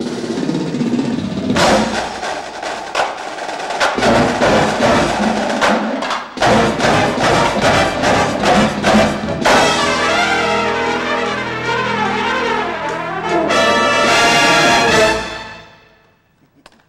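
Drum and bugle corps brass and percussion playing a loud, punchy passage, sharp accented hits through the first half, then a moving brass line and a long held chord that cuts off about a second and a half before the end.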